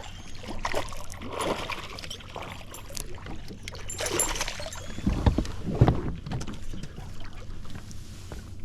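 A hooked bass being fought and landed from a boat: irregular splashing and rustling, then a couple of heavy low thumps about five to six seconds in.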